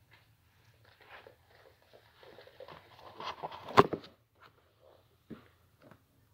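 Handling noise of a camera being picked up and moved: rustling and small knocks building to one loud knock a little under four seconds in, then a few scattered clicks.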